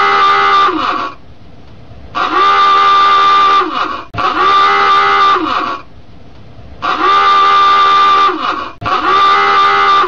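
Submarine klaxon-style alarm horn sounding in repeated blasts of about a second and a half each, with short gaps between them. Each blast is harsh and steady, then drops in pitch as it cuts off.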